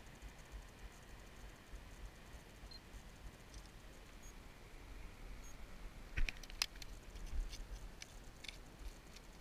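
Faint low wind rumble on the microphone, then from about six seconds in a scatter of light clicks and taps from fishing gear handled on gravel.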